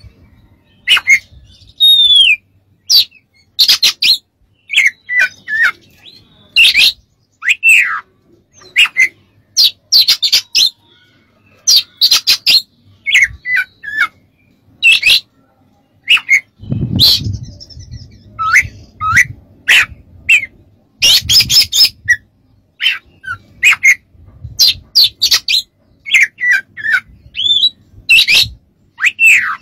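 Oriental magpie-robin singing: loud, separate short phrases of whistled notes that slur down or up, mixed with harsh scratchy notes, about one to two a second with brief gaps between them.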